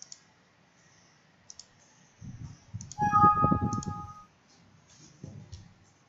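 A scattering of short, sharp clicks. About three seconds in comes a brief electronic tone of several pitches at once, the loudest sound, over low thudding.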